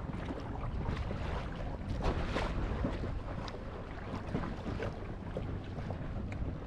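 Water splashing and rushing along the hull of a boat under way, with many small irregular splashes over a steady low rumble.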